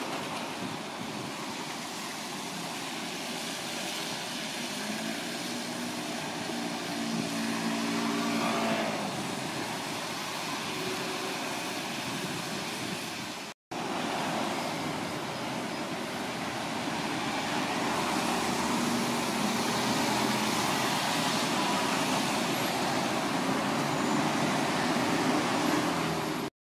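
Steady city road traffic at a bus junction, with buses and cars passing. About eight seconds in, a vehicle's hum rises in pitch as it pulls away. The sound breaks off for a moment about halfway, then traffic continues.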